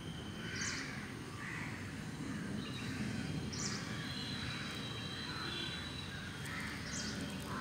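Outdoor ambience with birds calling: a short high call repeats about every three seconds among softer calls, over a steady low rumble.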